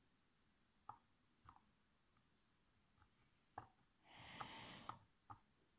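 Faint, scattered small clicks of a soldering iron tip touching a stripped hard-drive screw head, with a brief soft hiss a little after four seconds in.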